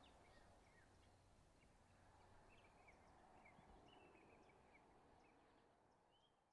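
Near silence: faint outdoor ambience with scattered short, high bird chirps, fading out at the end.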